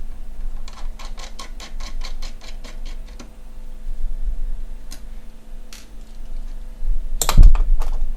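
Small screwdriver working screws out of a graphics card's metal backplate: a quick run of about six clicks a second for a couple of seconds, a few single clicks, then a louder knock near the end.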